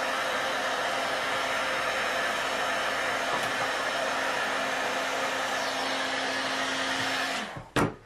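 Heat gun blowing steadily while it melts a hot-glue stick, with a faint motor hum under the air noise. It winds down about seven and a half seconds in, followed by one sharp click.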